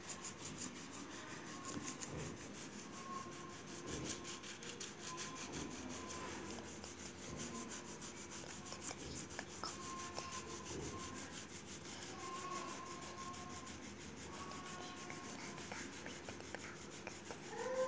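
Coloured pencil rubbing back and forth on paper in quick, even shading strokes.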